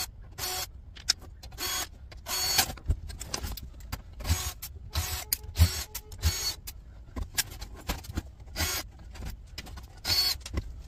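Cordless drill-driver whirring in many short bursts, a fraction of a second each, as it backs screws out of a sheet-steel case, with sharp metallic clicks between the bursts.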